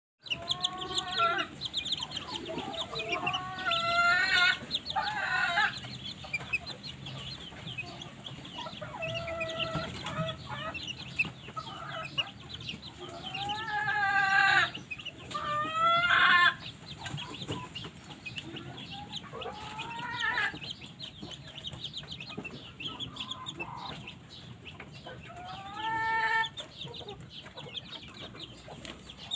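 Polish chickens clucking and calling in bouts of about a second, with a steady high twittering behind them.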